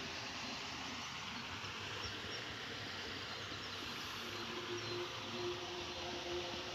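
Steady outdoor background noise with no distinct event; a faint steady hum comes in about four seconds in.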